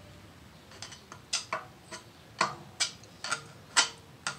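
Sharp, irregular metallic clicks and taps, about eight of them, the loudest near the end: a screwdriver knocking against the exposed shaft of the pressure washer's electric motor while trying to flick it into turning by hand.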